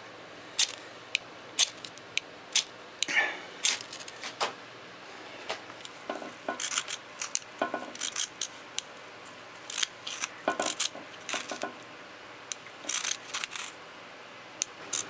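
Flint striker rod raked with a steel striker again and again in short, sharp scrapes, some single, some in quick clusters of several, with short pauses between, as the striker tries to throw sparks onto tinder.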